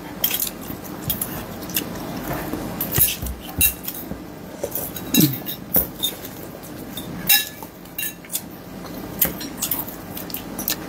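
Metal spoon and fork clinking and scraping against plates and bowls, a scatter of sharp clinks at irregular moments.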